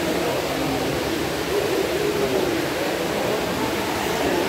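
Cave pool hall ambience: a steady rush of water with the indistinct murmur of bathers' voices.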